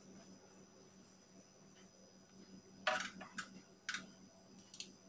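A few short metallic clicks and clinks of a screwdriver and screws on the metal head cover of a GOMCO 3060 suction machine's diaphragm pump during reassembly, the loudest about three seconds in and another about a second later, over a faint steady hum.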